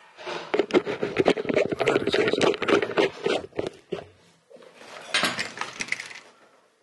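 Clothing rustling and rubbing right against the microphone as clothes are pulled off: a dense run of scuffs and scrapes for about four seconds, then a second shorter burst near the end.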